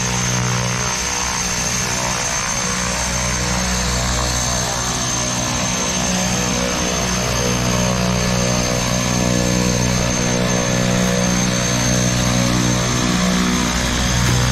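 Turboprop engines of a high-wing twin-engine commuter plane running on the ground: a steady high turbine whine over a low propeller drone, growing slightly louder toward the end.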